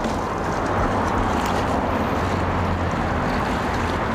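A steady low engine drone under an even wash of wind noise on the microphone.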